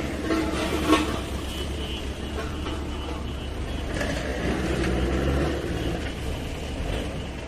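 Diesel engines of a Mahindra 475 DI tractor hauling a tipping trolley and a JCB 3DX backhoe loader running together, with a sharp knock about a second in. An engine revs up and swells around the middle.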